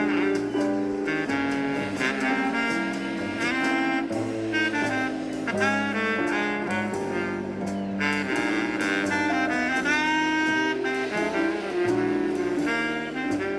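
Jazz music with a saxophone playing the melody over bass notes, running continuously.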